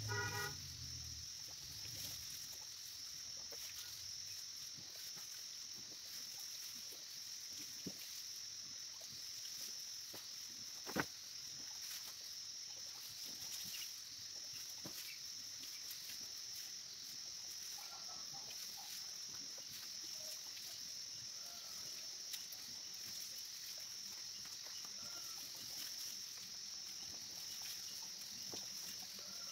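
Rural outdoor ambience: a steady high insect drone with faint calls of distant fowl, and one sharp knock about eleven seconds in.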